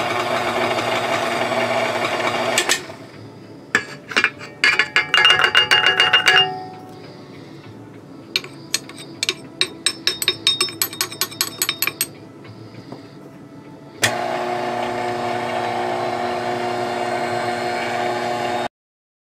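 KitchenAid stand mixer with a dough hook running steadily, then dropping away about three seconds in. A metal measuring cup clinks and taps against the steel mixing bowl in two spells. The mixer starts up again about 14 seconds in and the sound cuts off suddenly near the end.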